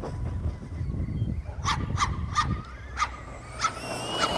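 A dog barking in the background, a run of about six short barks starting about a second and a half in, over a steady low rumble.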